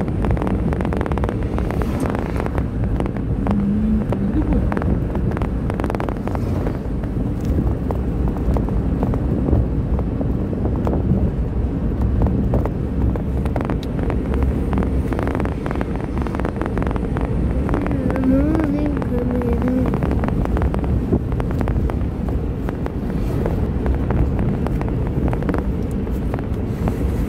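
Steady road and engine noise of a moving car heard from inside the cabin, with wind from open windows buffeting the microphone.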